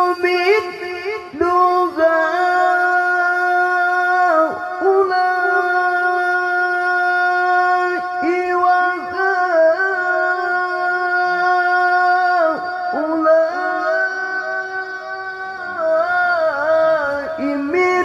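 A man reciting the Qur'an in the melodic tilawah style into a handheld microphone. He draws out long held notes with ornamented, wavering turns and pauses briefly for breath a few times.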